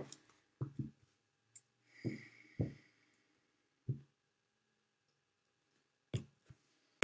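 Tarot deck being cut into piles and gathered on a cloth-covered table: a handful of soft, scattered taps as card stacks are set down and picked up, with a brief rustle of sliding cards about two seconds in.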